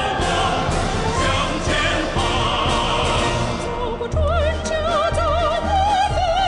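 Orchestral accompaniment with percussion strikes for a patriotic song. About four seconds in, a woman's solo voice with wide vibrato comes in over the orchestra.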